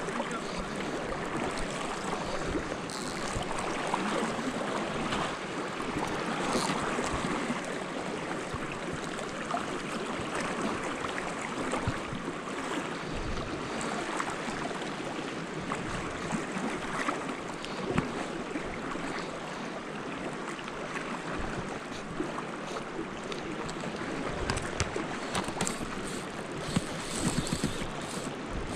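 Steady rush of fast-flowing creek water, with a few small knocks scattered through it.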